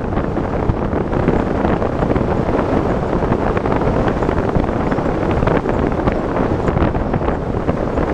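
Wind buffeting the microphone of a pole-mounted camera on a tandem paraglider in flight: a loud, steady rush of air noise.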